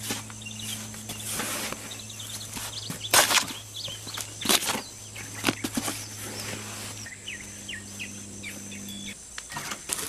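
Metal garden trowel scraping and scooping through a hypertufa mix of Portland cement, perlite, peat moss and sand in a plastic tub, in irregular strokes. Small birds chirp now and then, and a low steady hum in the background cuts off near the end.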